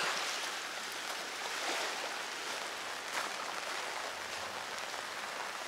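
Steady rain falling, an even hiss with a few faint ticks of drops.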